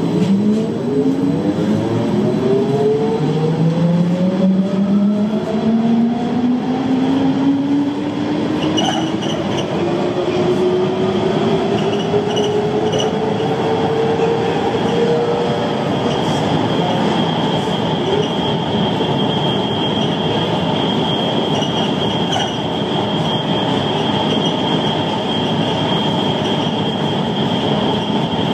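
Siemens Cityval driverless metro train pulling away from a station and accelerating into a tunnel, heard from inside the train. Its traction motors give a whine of several tones that rises steadily in pitch over the first half, over a constant rushing running noise, with a steady high whine once it is up to speed.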